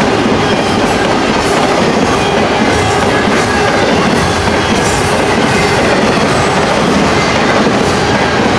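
Double-stack intermodal well cars of a fast BNSF freight train rolling past at close range: a loud, steady rumble and rattle of steel wheels on rail.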